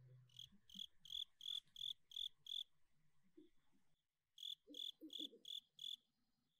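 Cricket chirping faintly: short high chirps about three a second, seven in a row, then after a pause of about two seconds five more.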